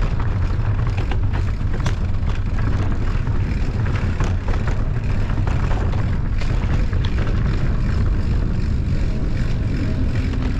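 Wind buffeting the microphone in a steady low rumble, with frequent sharp clicks and rattles of a mountain bike riding over rough ground.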